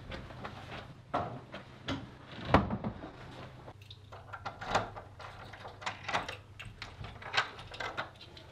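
Footsteps and the clicks and knocks of flat doors being handled at their locks, with one loud knock about two and a half seconds in, over a low steady hum.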